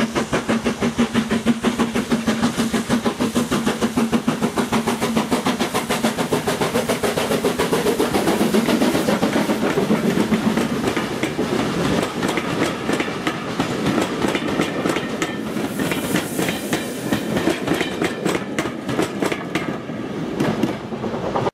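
BR Standard Class 9F steam locomotive running past under steam with a train of coaches: a fast, regular beat of exhaust and wheels clicking over the rail joints as the coaches go by, thinning out near the end as the train draws away.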